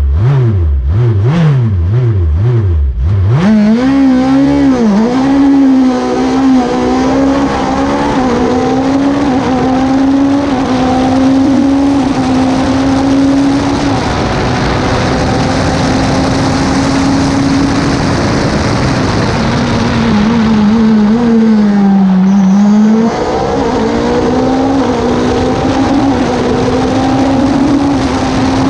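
Race car engine heard from inside the open cockpit. It is blipped repeatedly on the start line, about two revs a second, then rises sharply at launch about three seconds in and climbs through quick upshifts to a high, steady note with brief dips at each gear change. Over wind and road noise. About twenty seconds in, the note falls through downshifts under braking, then climbs again.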